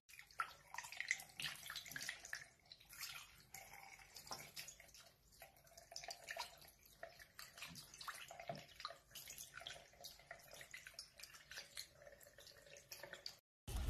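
Faint trickle of water running from a bathroom tap into a sink, with small splashes and drips as a hand wets a tiny monkey's fur. It cuts off abruptly shortly before the end.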